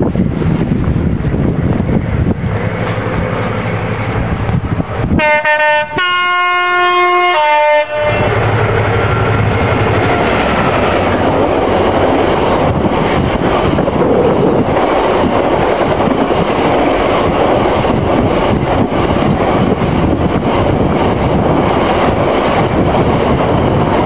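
A train's two-tone horn sounds for about three seconds, stepping between its two notes, about five seconds in. Then a long freight train of covered wagons runs past at speed, its wheels and wagons rumbling steadily.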